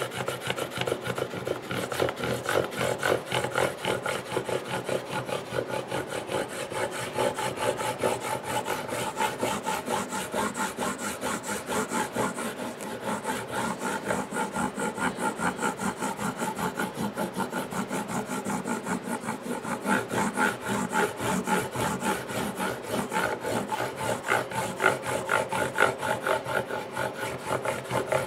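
Abrasive being rubbed back and forth by hand on the wood of a guitar part, in quick, even strokes at about three or four a second.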